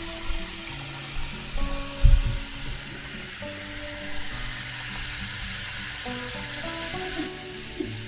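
Kitchen tap running into a stainless steel pot, filling it with water, under background music with sustained notes. A low thump about two seconds in.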